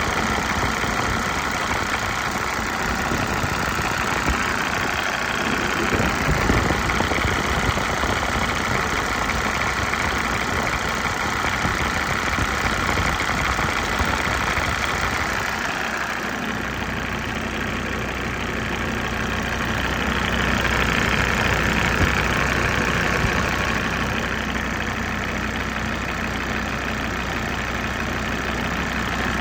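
Mercedes-Benz OM605 five-cylinder diesel idling at raised warm-up revs a minute or two after a cold start, running fairly evenly. About halfway through, the sound shifts and a deeper steady hum comes in.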